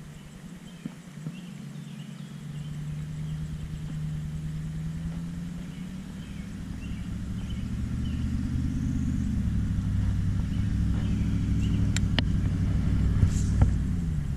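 A motor vehicle's engine running and drawing nearer, growing steadily louder, its low hum shifting a little in pitch. Two sharp clicks come near the end.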